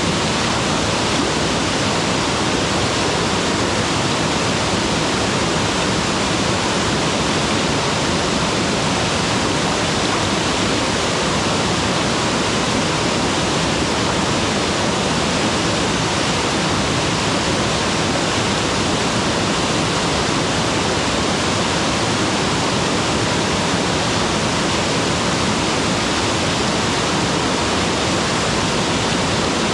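Mountain waterfall: water falling and rushing without a break, a steady, even roar of white noise.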